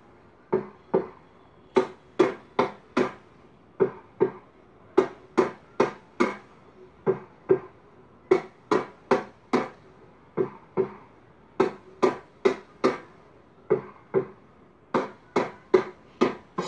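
A drum struck with sticks, playing a repeating rhythm: two strikes, a short gap, then four evenly spaced strikes, over and over.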